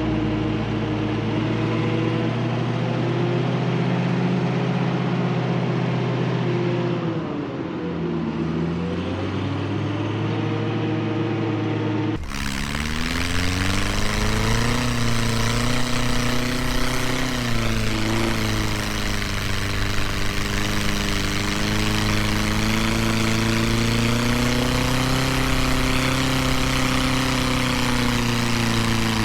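Engine of a tracked over-snow vehicle running steadily, its pitch dipping and recovering about eight seconds in. About twelve seconds in the sound cuts abruptly to another stretch of engine running with more hiss over it, its pitch slowly rising and falling.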